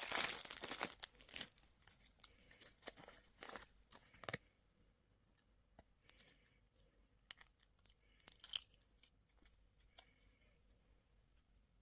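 Plastic candy wrapper being torn open and crinkled, dense at first, then thinning to scattered crackles after about four seconds.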